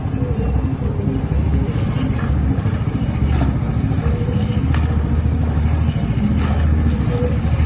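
Boat engine running steadily: a loud, even low rumble.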